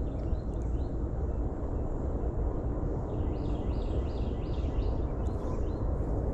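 A songbird singing runs of short, evenly repeated high notes, once near the start and again for a couple of seconds past the middle, over a steady low outdoor rumble.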